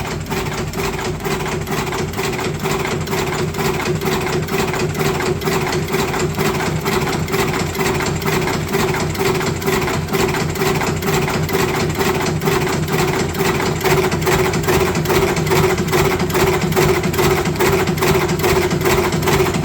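Electric cigarette rolling machine running: a steady motor hum with even, rapidly repeating mechanical clicks.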